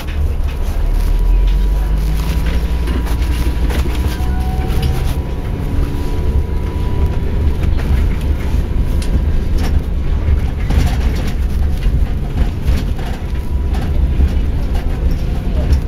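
Inside a moving bus: a steady, heavy low rumble of engine and road, with scattered rattles and knocks from the cabin and a faint, steady high whine.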